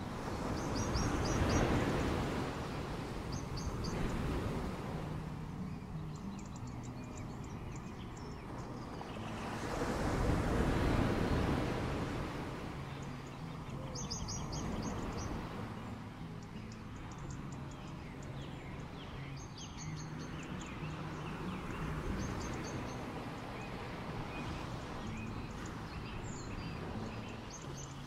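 Small waves washing onto a beach, swelling up and falling back twice. Birds chirp in short, quick trills throughout, over a faint low hum.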